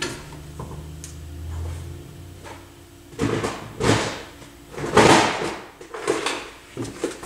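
Someone rummaging for an item: a low hum that stops about two seconds in, then about five separate scrapes and knocks, like a drawer or cupboard being opened and things moved about.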